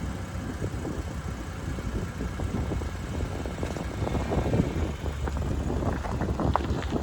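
A vehicle running with a steady low rumble, with irregular knocks and rattles that grow busier in the second half.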